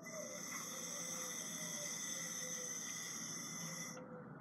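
Breath blown steadily through a bubble wand to blow a bubble, a soft even hiss that breaks off about four seconds in and starts again half a second later.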